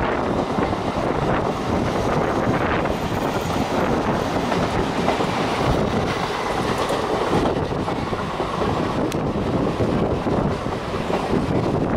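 Mumbai suburban electric trains (Bombardier EMUs) running side by side at speed: a steady rumble and clickety-clack of steel wheels on the rails, heard from an open coach doorway.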